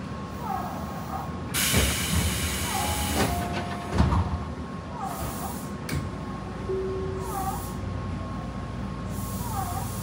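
Tobu 9050 series commuter train standing at a station platform as its doors open: a rush of hiss about one and a half seconds in and a heavy thud about four seconds in, over the steady hum of the train's equipment. A short chirping call repeats every couple of seconds.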